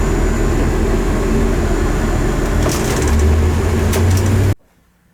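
Road and engine noise inside a moving truck's cab, steady, with a deeper rumble coming in about halfway through. It cuts off abruptly near the end, leaving a quiet room.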